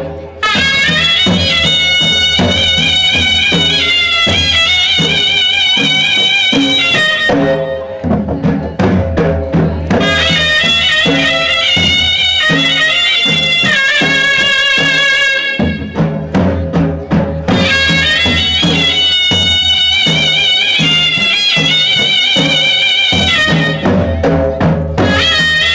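Gujarati folk music for a Charani ras dance: a reedy wind-instrument melody with wavering pitch over a steady drum beat. The melody drops out three times, about 8, 16 and 24 seconds in, leaving the drums alone for a moment.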